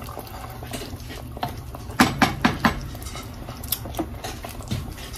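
Wooden spoon stirring chicken in coconut milk in a metal pot, with faint scrapes and a quick run of about four knocks of the spoon against the pot about two seconds in.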